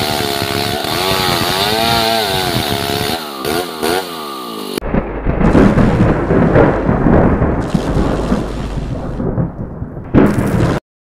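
Two-stroke chainsaw cutting through a large log, its engine pitch rising and falling under load. About five seconds in it gives way to a loud, rumbling, thunder-like sound effect that cuts off abruptly near the end.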